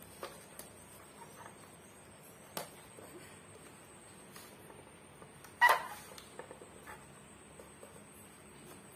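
Small handling sounds of paper and a plastic toy drawing projector: a few faint taps and rustles, with one sharper plastic click a little past halfway, around when the projector's lamp comes on.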